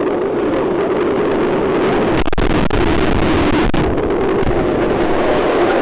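Loud, steady rush of water with a crowd's many voices and shouts mixed in, and a few faint knocks near the middle.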